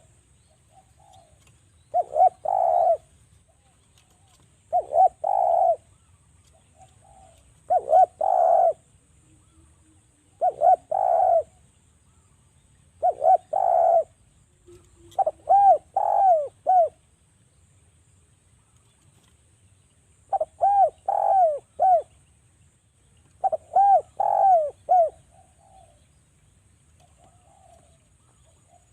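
Derkuku dove cooing: short phrases of several quick coo notes repeated about every three seconds, some phrases with arched, rising-and-falling notes.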